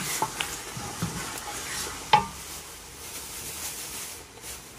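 A wooden spoon stirs a thick tomato-and-pepper sauce in an aluminium pot while the sauce sizzles steadily. There is one sharp knock about two seconds in.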